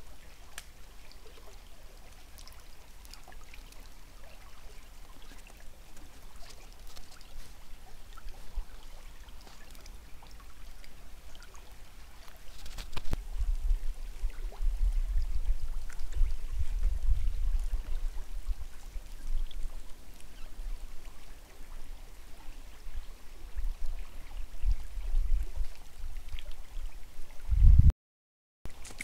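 Faint running water of a small stream with scattered drips, under bouts of low rumbling on the microphone from about halfway through, and a loud low thump near the end.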